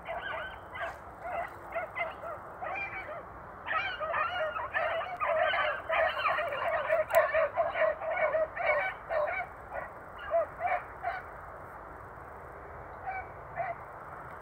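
A pack of Basset Fauve de Bretagne and beagle hounds giving tongue on a rabbit's scent: many overlapping baying calls, thickest in the middle, thinning to a few calls near the end.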